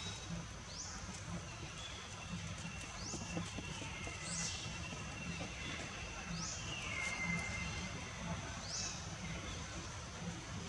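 Outdoor ambience of animal calls: short, high, rising chirps repeat every second or two over a steady high hum, with a longer falling whistle about seven seconds in.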